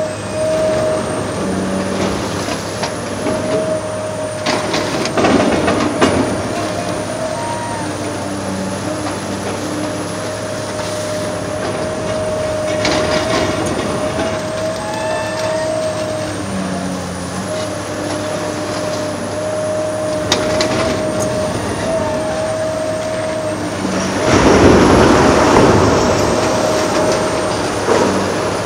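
Large hydraulic demolition excavator working: diesel engine running with a steady hydraulic whine, scattered knocks, and a loud burst of crunching rubble near the end.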